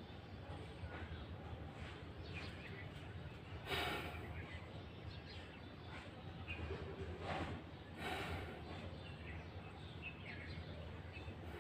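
Faint outdoor ambience with small birds chirping now and then, and a few loud breaths, about four seconds in and again around seven to eight seconds, as a person breathes out during a yoga pose.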